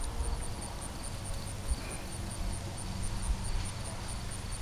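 Pug licking and smacking at a raw egg, with small wet clicks over a low rumble. Behind it, a steady high insect chirp repeats about four times a second.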